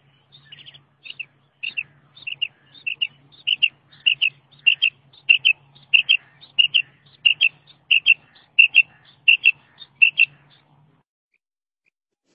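Female quail call, the kind used as a hunting lure: a rapid series of high paired notes, repeated about every half second for some ten seconds and stopping near the end. A faint low hum runs underneath.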